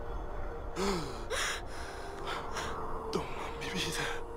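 A person's laboured breathing: a series of short, breathy gasps, one of them with a brief voiced groan about a second in, over a faint steady tone.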